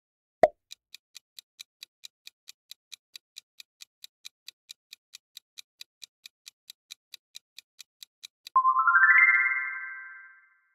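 Quiz countdown timer sound effect: a single sharp pop, then steady clock-like ticking about four times a second, ending in a bright chime that rises in steps and rings out as the answer is revealed.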